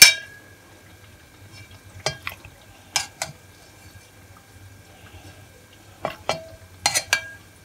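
Metal spoon clinking against a steel pot as fried balushahi are lifted out of warm sugar syrup. The clinks come mostly in close pairs, about nine in all; the first is the loudest and rings briefly.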